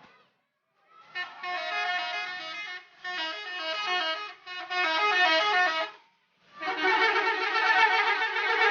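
Bus 'telolet' horn, a multi-tone musical air horn, playing a quick melody of short stepping notes. It starts about a second in and plays for about five seconds with brief breaks. After a short pause it starts again and runs on.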